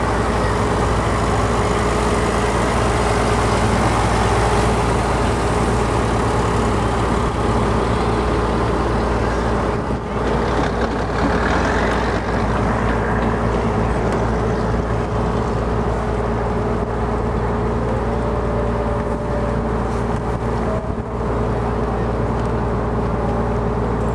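Passenger riverboat's engine running steadily under way, with a steady rushing hiss over it.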